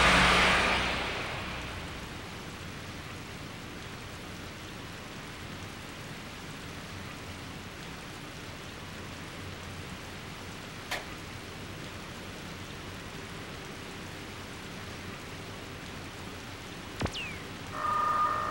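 Steady rain hiss, with a loud rush at the start that fades away over about two seconds. Near the end come a sharp click and a short electronic beep.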